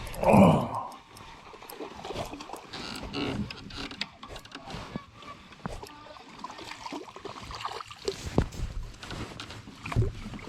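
A small hooked bass being landed from a kayak: irregular splashes, clicks and knocks as the fish is brought in and handled.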